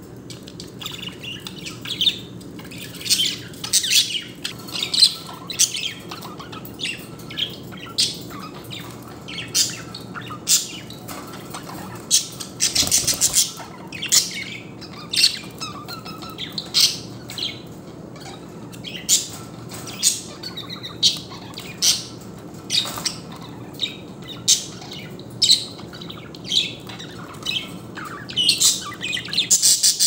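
Budgerigars giving many short, sharp squawks and chirps, scattered irregularly, with a quick run of chatter about halfway through: harsh calls of male budgies squabbling.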